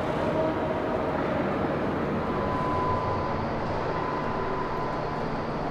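Steady background rumble and hiss inside a large shipbuilding hall. A faint steady tone comes in about halfway through.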